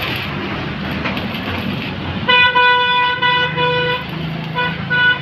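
Electric arc welding, the arc crackling and hissing steadily. About two seconds in a vehicle horn sounds loudly, held for over a second with brief breaks, then three short toots near the end; the horn is the loudest sound.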